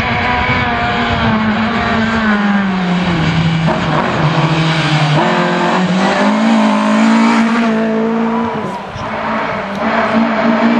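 Rally car engine under hard driving: the revs sink as the car slows, then climb again in steps through the gears, with a short drop in loudness near the end.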